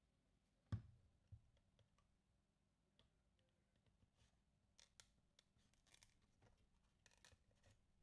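Faint plastic clicks and scrapes as a small pry tool works at the seam of a Dyson Supersonic hair dryer's housing, after a soft knock about a second in. The clicks could mean a part coming loose or a part breaking.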